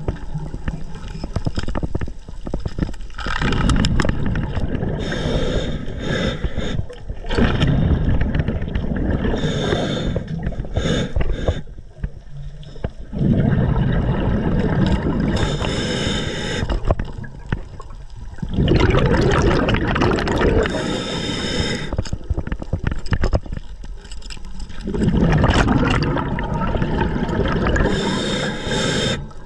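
Underwater bubbling and rumbling, coming in surges a few seconds long with short lulls between them about every four to five seconds.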